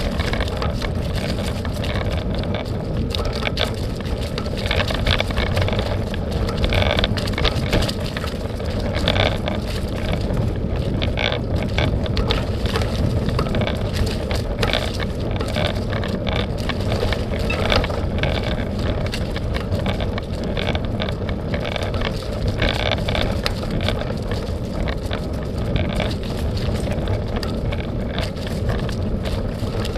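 Bike ride on a dirt trail: steady wind noise on the microphone with tyres rolling and the bike rattling over bumps.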